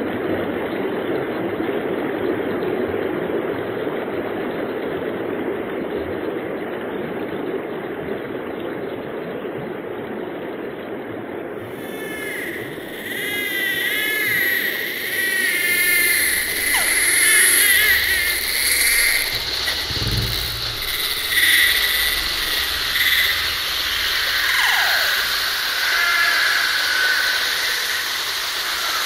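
Electroacoustic soundtrack: a steady rushing noise for about the first twelve seconds, then warbling, chirping high tones over a low rumble, with a short deep swell about two-thirds of the way through.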